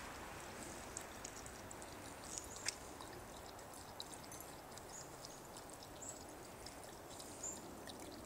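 Pembroke Welsh corgi lapping water after strenuous exercise: faint wet splashing with many quick, irregular high clicks and a few brief clinks.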